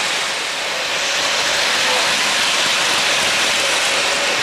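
Steady steam hiss from an O-gauge model steam locomotive's onboard sound system, played while the engine stands still between its crew-talk lines.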